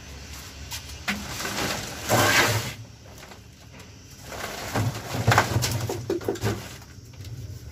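A large woven plastic sack rustling and scraping as it is lifted and shifted on a brick floor, in two loud stretches with a few knocks.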